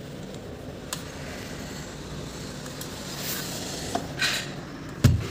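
Aluminium transom window being worked by its new handle: small clicks and scrapes from the handle and sash stays, then a loud thump near the end as the sash knocks against its frame or stays. The stays (scissor hinges) are moving smoothly.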